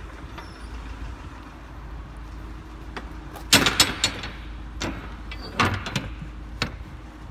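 Rear door hardware of a box van being handled: a quick cluster of sharp metal clanks about halfway through, then a few single knocks. A low steady hum lies underneath.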